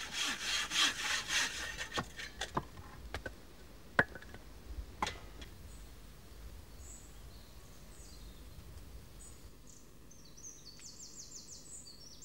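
A saw cutting wood in quick, even strokes that stop about a second and a half in, followed by a few scattered knocks. Near the end comes a faint run of high chirps.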